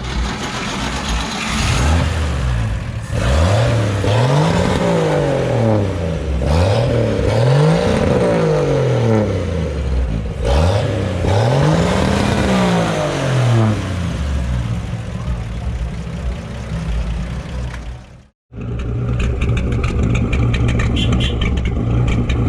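Old pickup truck's engine revved three times, each rev rising and falling in pitch, then settling to a steady idle. After a brief break near the end, an engine is running steadily again.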